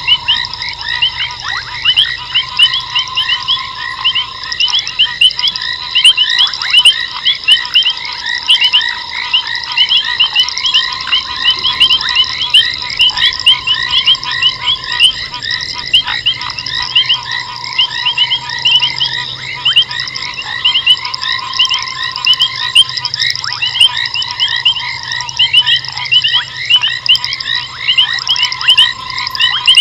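A dense night chorus of frogs: many short, high chirps repeating several times a second over a steady high trill, with a lower tone that comes and goes every few seconds.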